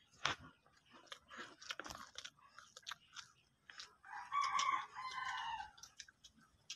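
A rooster crowing once, one long call starting about four seconds in, over scattered crunching and chewing of snacks close by.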